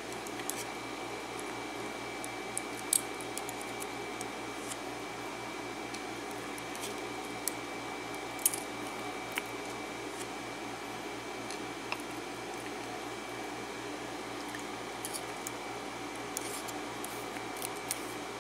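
Scattered faint metallic clicks and ticks of steel tweezers working in a brass lock-cylinder plug as pins are picked out of the chambers, with more clicks near the end. Under them runs a steady background hum.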